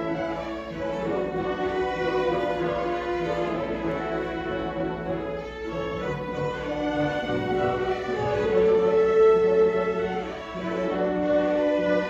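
Youth orchestra playing, with the bowed strings prominent in held, sustained notes; the volume dips briefly near the end and then swells again.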